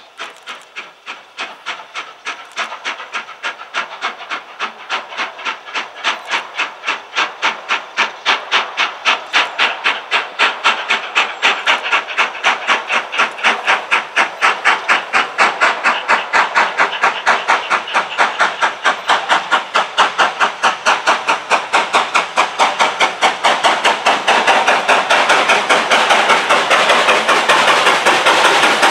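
BR Standard Class 5 4-6-0 steam locomotive No. 73082 exhausting in a steady, rapid beat of chuffs with steam hiss, growing louder as it approaches from the tunnel mouth.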